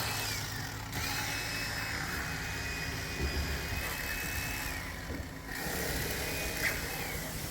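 A high, steady motor whine that winds down in a falling glide and starts up again, three times over, above a low rumble.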